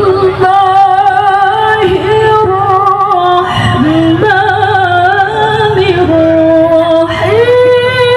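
A woman reciting the Quran in the melodic tilawah style: long held notes with ornamental turns, stepping between pitches and climbing to a higher sustained note about seven seconds in.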